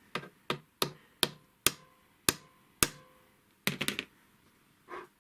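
Sharp metal-on-metal taps at the shuttle mechanism of a Chaika 142M sewing machine, about two a second, then a quick cluster of three or four and one softer tap near the end. This comes while the shuttle carriage is being nudged away from the needle, so that the shuttle point stops catching the needle.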